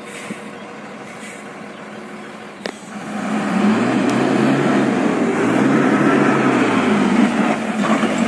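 Loaded truck's diesel engine straining up a steep climb: quieter for the first few seconds, then about three seconds in it revs up loud under load, the engine note rising and falling in two long surges.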